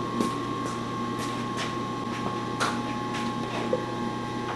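Steady hum and whine of a 16-inch Axelson lathe running under power, its headstock oil pump circulating freshly added oil, with light irregular ticks about every half second.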